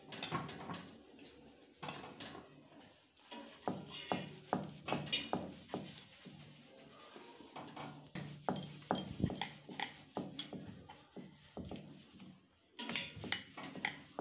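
A rolling pin rolling out a stuffed paratha on a round wooden board, with irregular light knocks and clatter as the pin and board move.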